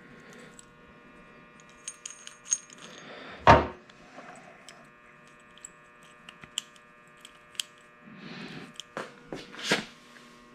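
Small metal clicks and clinks of a car trunk lock assembly and its lock arms being handled and tried in place, with a loud knock about three and a half seconds in and a few more knocks near the end, over a faint steady hum.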